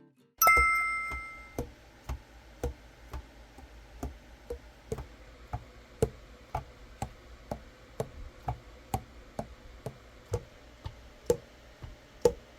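A single bright chime, then steady, evenly spaced ticking at about two ticks a second, like a clock.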